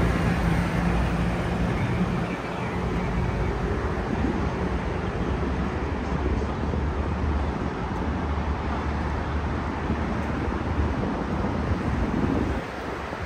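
Busy city street noise: road traffic passing with a steady low engine hum, which fades for a while and comes back, before the noise eases slightly near the end.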